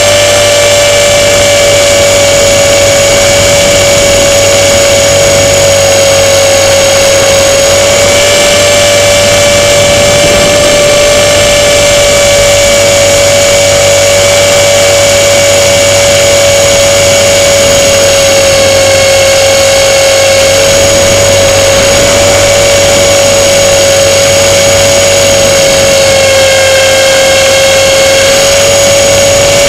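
Motor and propeller of a radio-controlled model airplane, heard from on board in flight: a loud, steady high whine that shifts slightly in pitch a few times, over a rush of wind.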